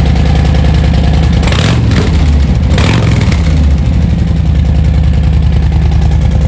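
Motorcycle V-twin engine running through newly fitted Khrome Werks slip-on mufflers: a steady idle, blipped twice in quick succession about a second and a half in.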